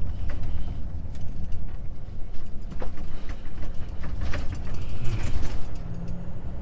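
Inside a truck cab driving over a badly broken road: a steady low engine and road rumble with the cab and its fittings rattling and clattering irregularly as the truck shakes over the rough surface.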